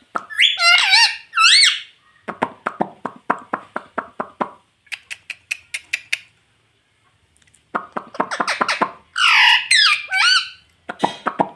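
Pet ring-necked parakeet calling: shrill whistled squawks that swoop up and down in pitch at the start and again near the end, with quick runs of clicking chatter in between.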